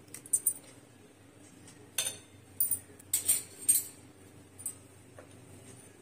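Metal spoon clinking and tapping against a stainless steel mixer jar as ice cream is scraped off into it: several sharp clinks, the loudest in the middle of the stretch.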